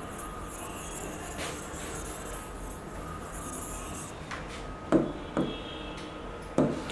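Soft rubbing of a hand on an interactive board's touch screen during erasing, then a few short taps on the screen near the end, over a faint steady room hum.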